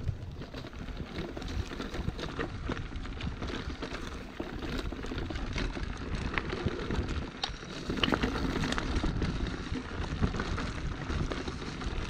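Footsteps on a forest trail: irregular crunching and crackling with light rustling, over a low rumble.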